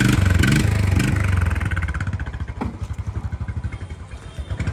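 Motorcycle engine running close by with a fast, even low beat, then fading over a few seconds as the bike moves off.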